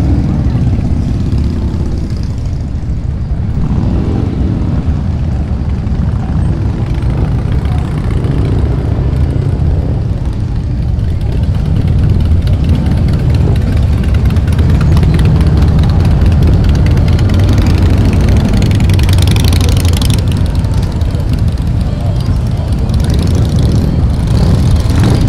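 Motorcycle engines running in a crowded street, a steady low rumble that grows louder about halfway through, with one rising in pitch about three quarters of the way in.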